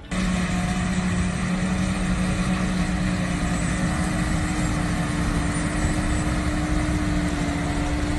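Heavy farm machinery engine running steadily at constant speed, with an even hum and a steady whine above it.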